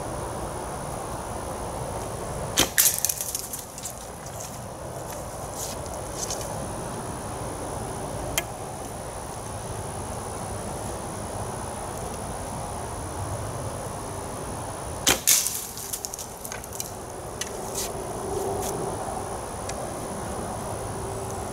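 Two shots from a traditional bow about twelve seconds apart, each a sharp string release followed almost at once by the arrow hitting and breaking a clay pigeon held in a wire stand, with a few lighter clicks after each.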